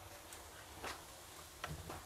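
A few light knocks and clicks of cookware, a utensil against a frying pan on the stove, about a second in and twice near the end, over a low steady hum.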